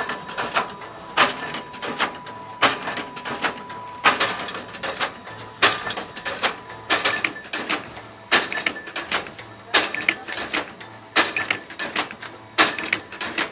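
Chain-link welding machine running, clacking rhythmically as it clamps and welds the links, with lighter clicks between the heavier strikes. A steady high whine stops about four seconds in.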